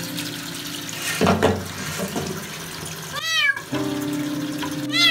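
A small kitten meowing twice, high cries that rise and fall in pitch, about three seconds in and again near the end, as it is bathed under running shower water.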